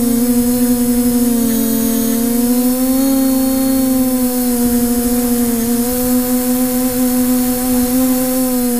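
Multirotor drone's electric motors and propellers running with a steady, loud hum, heard from the camera on board. The pitch sags and rises slightly a few times, most clearly about two seconds in.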